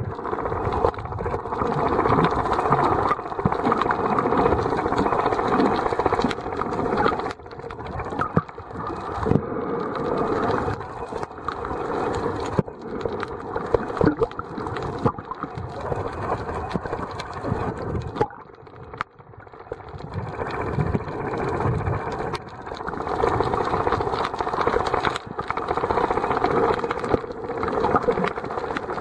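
Muffled underwater noise picked up by a camera submerged in its waterproof housing: a dense rush of water that swells and fades every few seconds, with scattered knocks.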